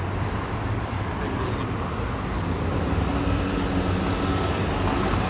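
City street traffic: the steady hum of a motor vehicle's engine, growing gradually louder toward the end.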